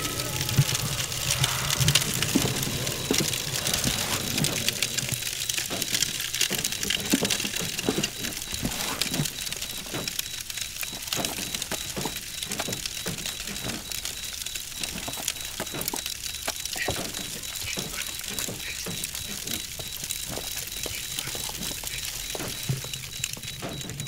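Fire crackling and popping as a cardboard and paper puppet stage burns: a dense, irregular crackle over a steady hiss, easing off slightly toward the end.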